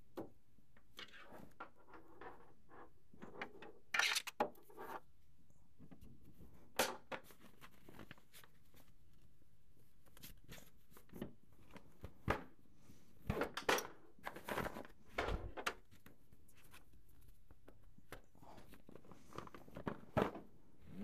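Handling sounds from assembling a 4moms Mamaroo baby rocker: irregular clicks and knocks of its plastic frame parts, with rustling of the fabric seat cover in between.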